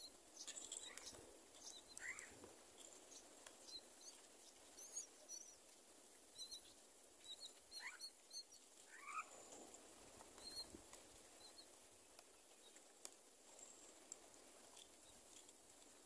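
Faint high squeaks and short chirps of common myna nestlings begging while the parent feeds them in the nest, with a few short sliding calls about two, eight and nine seconds in. The calls thin out over the last few seconds.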